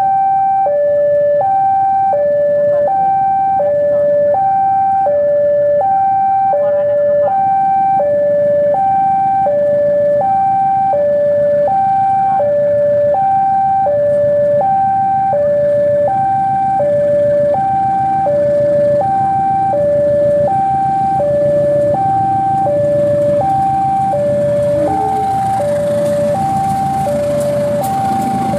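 A two-tone electronic warning alarm alternating high and low, about one tone per second. Under it runs the rumble of a CC 203 diesel-electric locomotive, which grows louder toward the end as the locomotive draws past.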